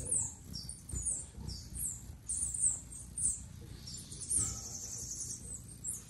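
Red-billed streamertail hummingbirds calling with sharp, high, quickly falling chips, repeated through, with a fast chattering run of notes about four seconds in.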